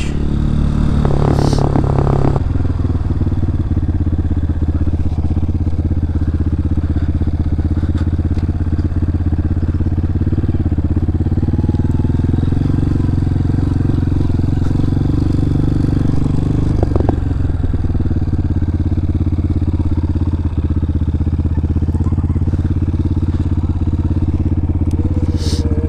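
Honda CRF230F dirt bike's single-cylinder four-stroke engine running at a fairly steady speed as the bike is ridden.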